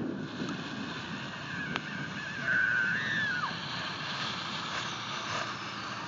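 Wind buffeting a phone microphone over the faint run of a small utility vehicle's engine towing a snow tube. About two and a half seconds in, a high held cry lasting about a second bends downward at its end.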